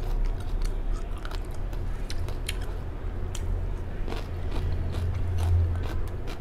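Close-up chewing of a mouthful of lettuce salad with cherry tomatoes, with many small crisp crunches, over a steady low hum.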